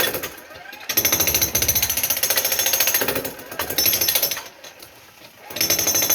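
Jackhammer hammering at a concrete floor in rapid, even strokes. It stops briefly about half a second in, and again for about a second near the end, then starts again.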